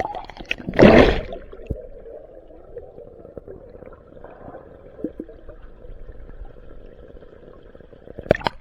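Swimming-pool water with one loud splash about a second in, then steady, muffled water sound.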